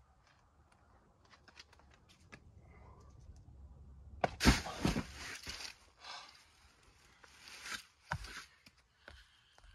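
Climbing shoes and hands scraping and scuffing on rock during a high heel-hook move on a boulder problem. A few faint taps come first, then a short burst of scraping about four and a half seconds in, and smaller scuffs near the end.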